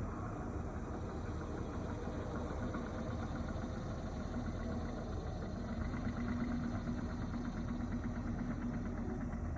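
An engine running steadily, with a held low hum and a fine even pulsing over it.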